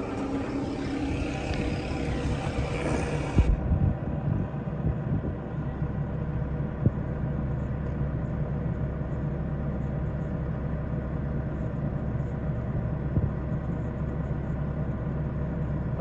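An engine running steadily, a low rumble with a constant hum. About three and a half seconds in, the sound turns abruptly duller, and a few faint clicks sit over the rumble.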